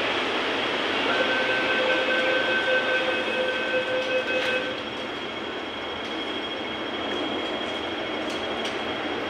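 Hong Kong MTR subway train running in an underground station: a steady rush of noise with a high whine that holds for a few seconds and stops about halfway through, after which the rush goes on a little quieter.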